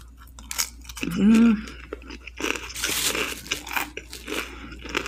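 Crunchy chewing of a bite of hash brown, in repeated crackly strokes, with a short hummed "mm" about a second in.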